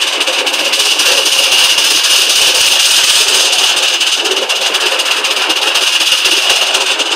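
3½-inch gauge live steam model of a GWR County class locomotive running on its track: a steady hiss with a fast, even clatter.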